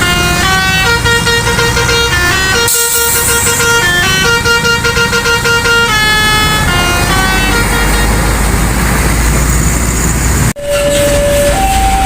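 Bus 'telolet basuri' multi-tone air horn playing a quick melody of changing notes over a running engine. About ten and a half seconds in, after an abrupt cut, a slower two-note tone alternates.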